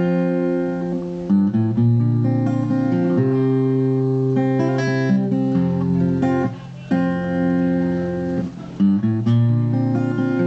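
Acoustic guitar fingerpicked slowly, single notes of a picking pattern starting on a G chord ringing over one another. The notes break off briefly twice, about six and a half and eight and a half seconds in.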